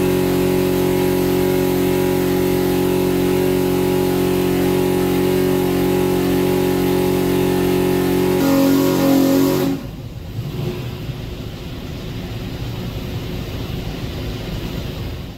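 632ci big-block Chevrolet V8 on an engine dyno, held at a steady high-rpm sustained pull at about 5,600 rpm, making about 818 hp. Its note rises briefly about eight seconds in. Near ten seconds the steady note ends, and the engine runs on quieter and rougher.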